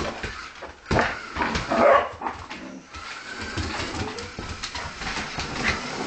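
Brittany spaniel barking in short loud bursts while going after a small remote-control car, the loudest about a second and two seconds in, with sharp clicks and knocks on a wooden floor.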